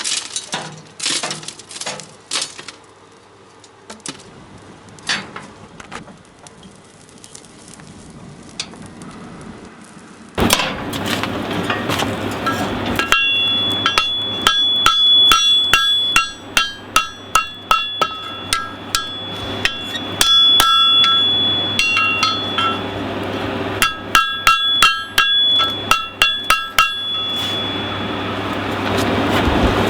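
Hand hammer striking a hot horseshoe on the anvil in quick runs of blows, each with a bright metallic ring, over a steady rush and hum from the coal forge's blower, which starts about a third of the way in. Before that come only scattered light taps and clinks.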